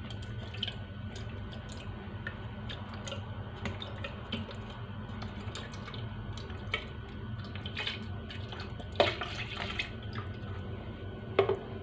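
Milk pouring from a carton into a plastic blender cup, trickling and dripping with small splashes. There are a couple of louder splashes or knocks about nine seconds in and again near the end.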